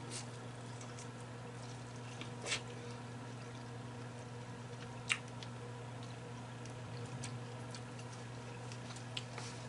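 Quiet chewing of buttery boiled corn on the cob, with a few short wet smacks, the clearest about two and a half and five seconds in, over a steady low hum.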